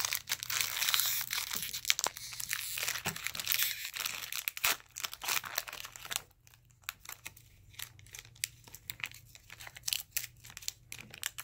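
Foil wrapper of a hockey trading card pack being torn open and crinkled by hand. The crackling is dense for the first half, then turns into sparser crinkles as the cards are slid out of the torn wrapper.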